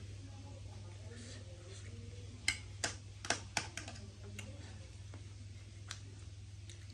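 Eating sounds close to the microphone: a quick run of about half a dozen sharp clicks and crunches a couple of seconds in, and one more later, over a steady low hum.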